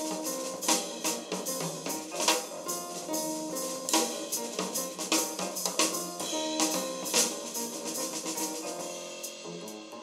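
A CD track with drum kit and pitched instruments playing through homemade two-way speakers: Altec 10 cm full-range drivers with Victor ribbon tweeters, driven by a 4 W mini amplifier and picked up by a mobile phone's microphone. It is thin in the deep bass, and it gets quieter near the end.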